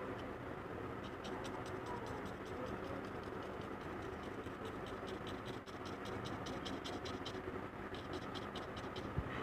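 Paintbrush bristles dabbing and scratching on paper in quick stippling strokes, coming in runs of several sharp taps a second, over a steady low hum.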